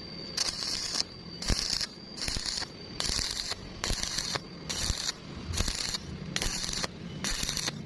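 Electric arc welding done in short, evenly repeated bursts of arc crackle, about nine of them, each under half a second, with brief pauses between. A faint steady high whine runs under the gaps.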